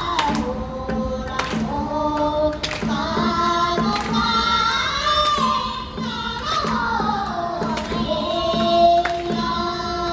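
Girls singing a Japanese folk song through microphones and a PA, the melody wavering and sliding between notes. Shamisen and a small taiko drum accompany them, the drum striking about once every second and a half.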